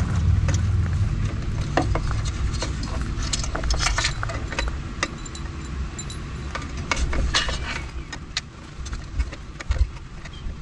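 Small clicks, taps and rattles of plastic wiring connectors and cables being handled while an e-bike controller's harness is plugged back together. Underneath is the low rumble of a passing vehicle, which fades out after about eight seconds.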